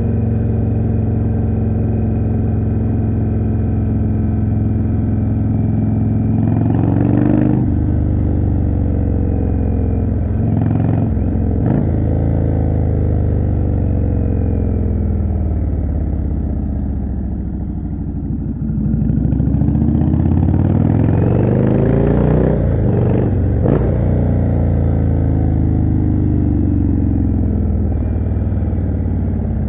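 Indian Chieftain's 1811 cc V-twin through a Jekill & Hyde exhaust, heard riding: the engine note climbs under throttle and breaks off at a gear change twice in the first half, winds down for several seconds as the bike slows, then climbs again with two quick gear changes and falls off near the end.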